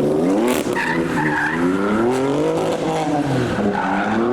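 Car engines revving up and falling back twice as cars slide through a rain-wet corner, with tyres squealing and skidding about a second in.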